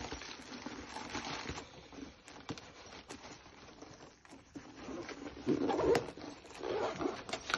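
Clear plastic bag crinkling, then handling noise as padded cases are laid into a hard-shell suitcase, with scattered light clicks and taps.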